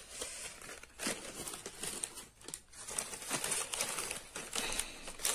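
Paper and card perfume-sample sachets rustling and crinkling as hands shuffle them into a round box, with a few sharp clicks among the rustles.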